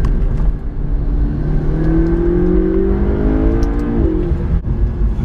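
McLaren 650S twin-turbo V8 accelerating over a steady low rumble, its pitch rising for about two seconds and then dropping away about four seconds in.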